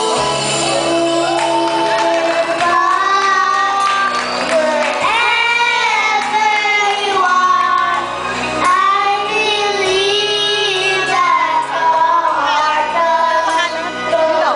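Two children, a boy and a girl, singing a duet into handheld microphones over backing music.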